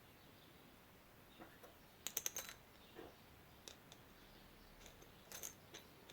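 Faint, light clicks of small metal parts being handled: a quick cluster of about four a couple of seconds in, a few single clicks, then a short group near the end.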